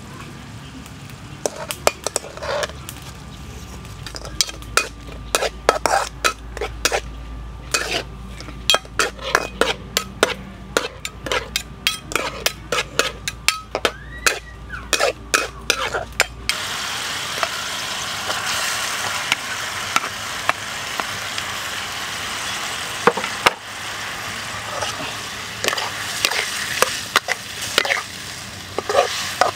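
Metal spatula scraping and clinking against a metal wok in quick, irregular strokes while stirring onions and chilies in sauce. A little over halfway in, a steady sizzle of frying comes in louder under the stirring.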